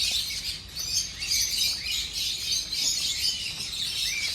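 Many small caged birds chirping and chattering at once, a dense, high, unbroken twittering, with a few short rising-and-falling calls standing out near the end.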